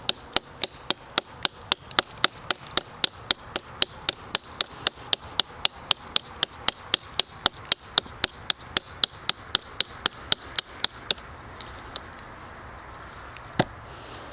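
A small folding knife's blade hacking over and over into a hard, dead fallen log, about four quick sharp strikes a second. The strikes stop about eleven seconds in, then come once more near the end.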